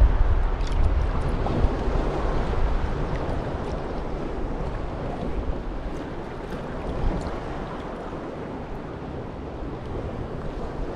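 Wind buffeting the microphone over sea water sloshing, with gusts strongest in the first couple of seconds and easing off after.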